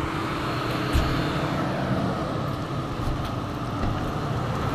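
SUVs rolling slowly across a concrete yard: a steady low engine and tyre noise, with a single thump about a second in.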